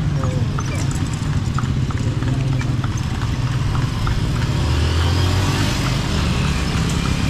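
Horse hooves clip-clopping steadily as a kalesa horse pulls the carriage, over a constant low rumble of the ride. A motor vehicle's hum swells and fades about five seconds in.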